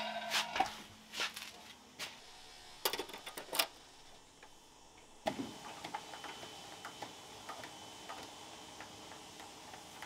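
A few sharp knocks and clunks as a large off-road tyre and wheel is handled on a concrete floor, then from about five seconds in a steady background hum with faint light ticks.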